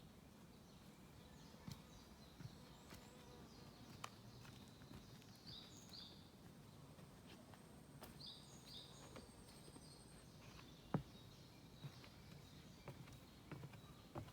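Faint small songbirds singing in a forest, with short clusters of high chirps and a thin high trill held for a few seconds past the middle. Occasional soft footsteps on a forest path, the loudest about two-thirds of the way through.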